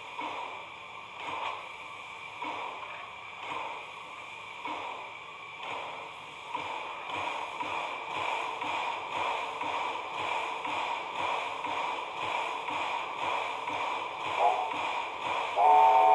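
7 mm scale NSWGR 12 class model steam locomotive running under power on rolling-road rollers: a steady motor-and-gear hum with a regular beat about once a second that quickens to about twice a second some six seconds in. A short, louder pitched tone sounds near the end.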